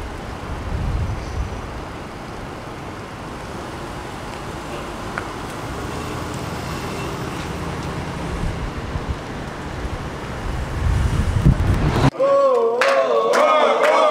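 City street traffic noise, a steady rumble of passing vehicles. About twelve seconds in it cuts off suddenly and a group of men sing together with hand claps.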